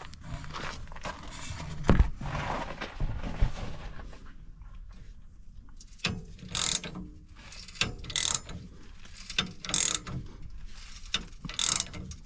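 Hand ratchet wrench clicking as a leaf spring center bolt is tightened, with a few knocks of tools on metal and, in the second half, repeated ratchet strokes about every second and a half.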